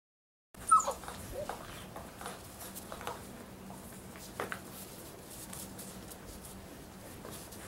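Six-week-old Labrador retriever puppies at play: one sharp yelp falling in pitch about a second in, then a few short, fainter yips and scuffles, over a steady low hum.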